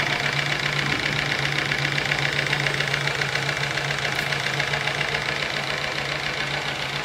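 Small homemade twin-cylinder, double-acting steam engine running steadily and fast on live steam, with a rapid, even mechanical beat. It is driving a small DC motor as a generator under load.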